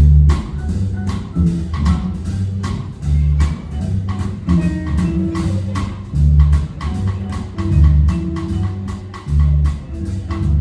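Instrumental band music without singing: a bass line moving between notes under a steady percussion beat of woodblock-like ticks.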